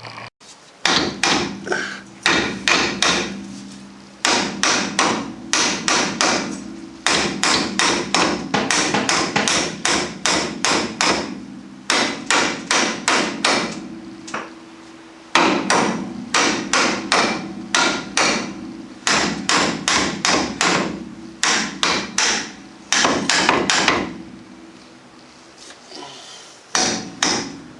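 Hammer blows on a seized disc-brake caliper to knock it loose: runs of sharp metal strikes, about three a second, with short pauses between runs.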